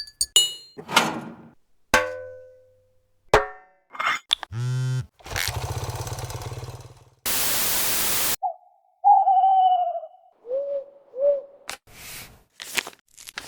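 A rapid string of unrelated short editing sound effects, one after another: sharp clicks, a ringing ping, a warbling buzz, hiss, a second of flat static, then a few falling whistle-like chirps and more clicks near the end.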